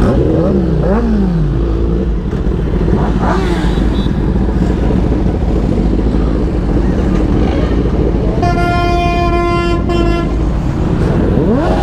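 Several superbike engines running together, revved up and down as bikes pull away, with rising and falling revs near the start, about three seconds in and again near the end. A vehicle horn sounds once, held steady for about a second and a half, about three-quarters of the way in.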